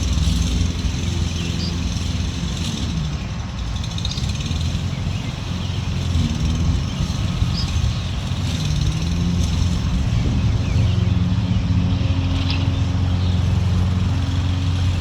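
Small single-cylinder engine of a Toro self-propelled gas push mower running steadily, its pitch dipping and recovering a few times.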